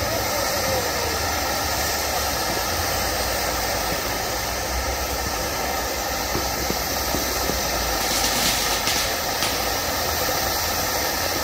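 Swiss volcano ground fountain burning, a steady hissing rush of spraying sparks that brightens for a moment about eight seconds in.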